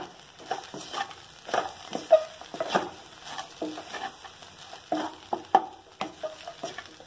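Wooden spatula stirring and tossing poha upma with chopped vegetables in a steel kadai: an irregular run of scrapes and knocks against the pan, two or three a second, over a light frying sizzle.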